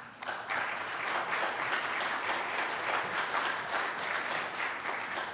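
Congregation applauding: many hands clapping in a dense, steady patter that starts a moment in and begins to thin near the end.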